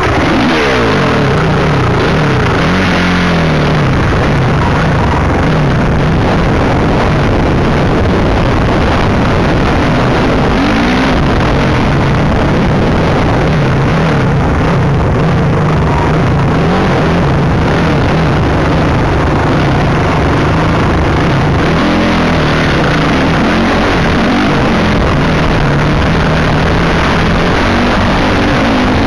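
Dirt bike engine heard from the rider's helmet. The revs drop sharply right at the start, then it runs at a fairly steady low pitch with a few brief rises and falls, over constant rough noise.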